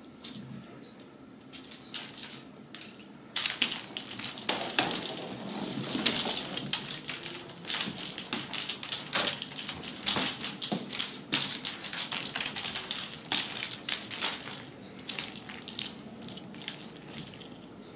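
Ragdoll kittens scampering and pouncing on a rug after a plastic ball toy on a string: a busy run of scuffs, scrabbling claws and light clicks. It starts about three seconds in and thins out near the end.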